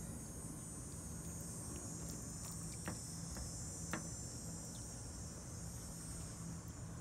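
Steady high-pitched insect chorus, with a low hum underneath. Two short clicks come about three and four seconds in.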